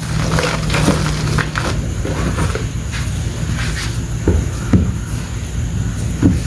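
Reformed chalk crumbling and crunching as it is crushed by hand, a steady run of small irregular crackles with a few louder crunches in the second half.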